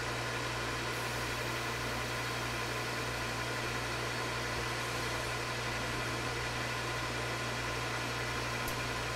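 Metal lathe running steadily through a light turning cut on a 304 stainless steel bar. A long stringy chip peels off the tool over a constant low motor hum.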